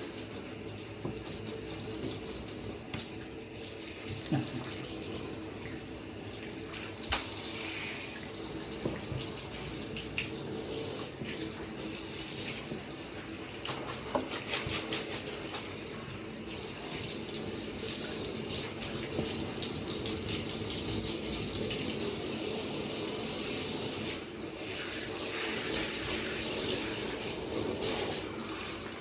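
Tap water running steadily into a bath, with occasional splashes and small knocks; the flow gets a little louder about halfway through.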